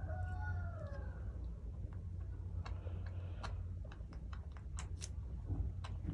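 A baby monkey's thin, falling coo trailing off in the first second, then a scattering of sharp clicks and ticks.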